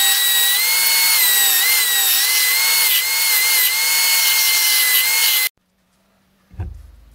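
Small vertical belt sander running loud, its motor whine wavering slightly in pitch as a wooden handle piece is pressed against the sanding belt. The sound cuts off abruptly about five and a half seconds in, followed a second later by a single low thump.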